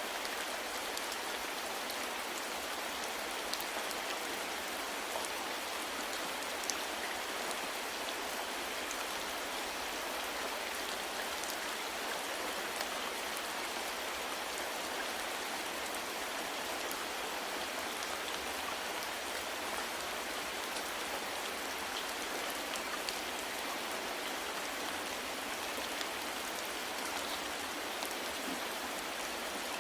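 Steady, soft rain falling, a constant hiss with scattered individual drops pattering.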